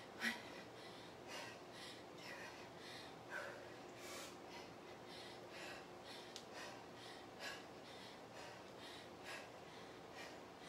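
A woman breathing hard while exercising, with faint, even breaths about one a second.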